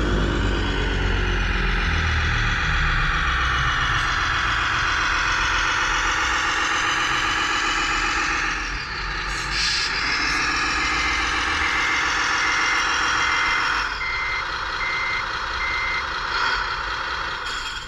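Radio-controlled model construction vehicle running steadily. About ten seconds in, a reversing beeper sounds about nine times, evenly spaced.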